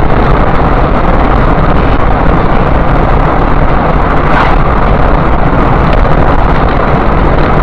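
Steady loud road and wind noise of a car driving at highway speed, heard through a dashcam's microphone inside the cabin, briefly louder about four seconds in as another car overtakes close alongside.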